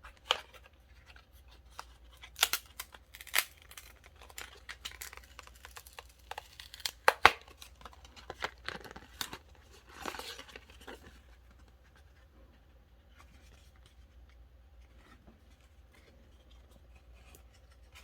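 Small product package being opened by hand: irregular sharp rips, snips and crinkles of packaging, busiest in the first ten seconds or so and fading to faint handling noise after that.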